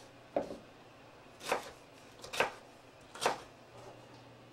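Chef's knife dicing red potatoes on a wooden cutting board: four knocks of the blade on the board, about a second apart.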